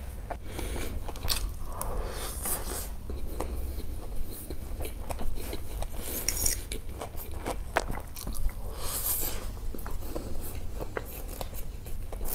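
A person chewing and crunching food, with many short, sharp clicks and crackles scattered throughout.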